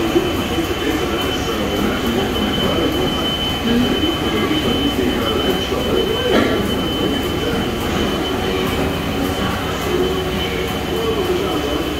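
INDEX GU 2000 CNC lathe running a machining cycle behind its closed guard. A steady high whine sits over a wavering lower hum and mechanical noise, with a brief louder surge about six seconds in.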